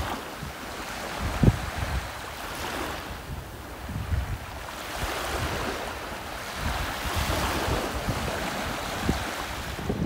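Small waves lapping and washing up on a sandy beach, swelling and easing, with wind buffeting the microphone.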